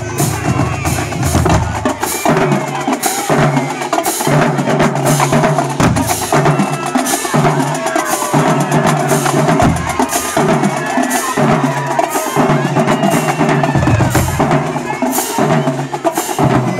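Marching band drumline playing a cadence: bass drums sound a repeating low pattern under fast, sharp drum strokes.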